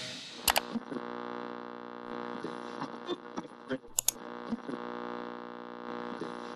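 Old analogue radio giving out a steady electrical hum, with scattered clicks and crackles as its dial is tuned; the loudest crackle comes about four seconds in.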